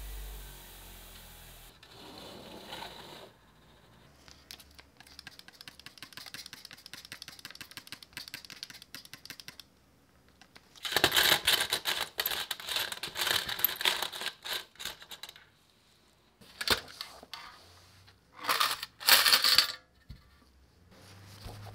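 A bench grinder's motor hums and winds down in the first couple of seconds. Then a trigger spray bottle hisses in quick repeated squirts over small steel bolts, springs and washers in a metal tray. A few short, louder rattles of the small parts come near the end.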